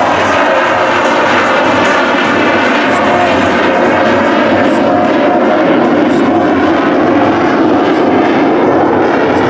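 McDonnell Douglas CF-18 Hornet's twin General Electric F404 turbofan engines in afterburner during a low pass: a loud, steady jet rush that holds without a break.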